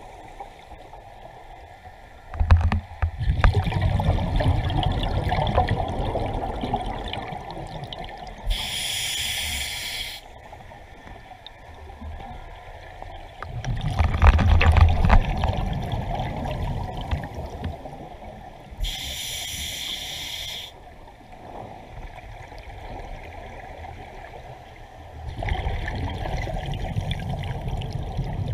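Scuba diver breathing through a regulator underwater: three long exhalations bubbling out with a low gurgling rush, and between them two short hissing inhalations through the regulator, about ten seconds per breath.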